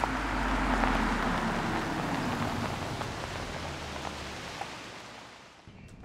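Car driving past and away over a gravel driveway, tyres crunching on the stones over a low engine hum. It is loudest about a second in, then fades as the car moves off.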